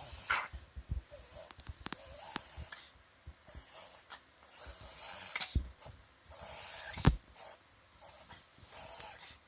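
A dog reverse sneezing: repeated harsh, noisy pulls of air in through the nose, each about a second long and coming every second or so. Several sharp clicks fall between them, the loudest about seven seconds in.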